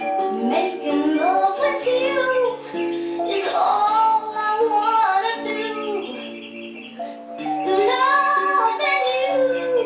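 A female voice singing a slow love song in sliding, wavering phrases over an accompaniment of held chords and bass notes.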